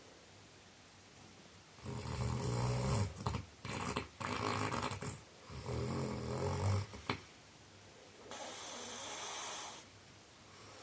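A man snoring heavily in his sleep, really noisy. After a short quiet pause come two long rattling snores with broken snorts between them, then a softer breath out near the end.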